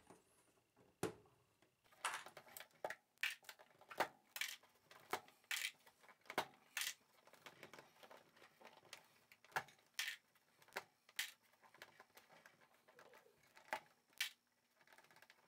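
Faint, irregular clicks and taps of plastic knobs being pulled off the potentiometer shafts of a Tascam 414 Mk2 cassette portastudio, with sharper clicks as the knobs are dropped into a bowl.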